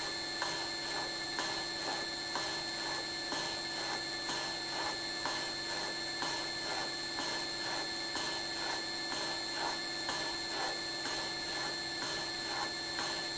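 Bridgeport slotting head cutting a keyway in a steel coupler: the ram strokes up and down at about two strokes a second over a steady motor whine. This is a light final pass to widen the keyway by a couple of thou, and the cutter may only be just touching the steel.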